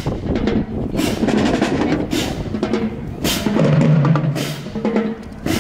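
Marching band drumline playing a marching cadence, with strong drum hits about once a second.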